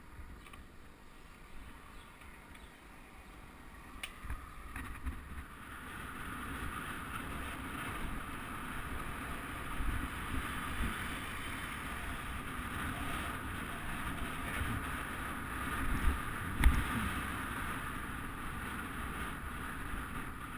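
Wind rushing over the camera microphone of a road bike on the move, with tyre rumble on asphalt, growing louder a few seconds in as the bike picks up speed. A few short knocks, the loudest near the end.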